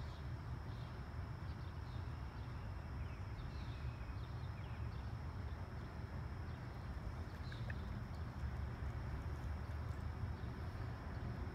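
Outdoor background: a steady low rumble with short, faint high chirps scattered through it and a faint steady high tone.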